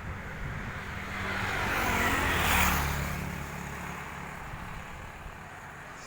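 A road vehicle passes close by, its engine and tyre noise swelling to a peak about two and a half seconds in and then fading away.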